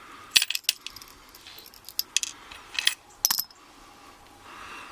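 Small metal lock parts clicking and clinking in a series of sharp taps as a Yale dimple rim cylinder is taken apart.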